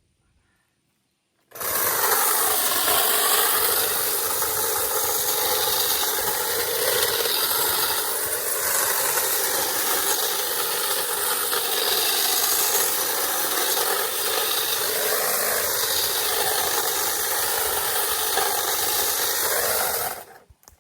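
A power tool runs steadily while cutting tree branches. It starts abruptly about a second and a half in and stops just before the end, its pitch wavering as it works.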